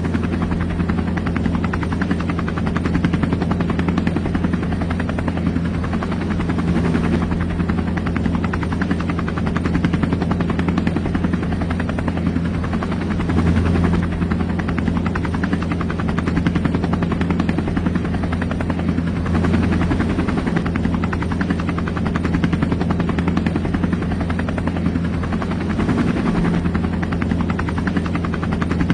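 A steady low mechanical drone with a fast, even flutter, unchanged throughout.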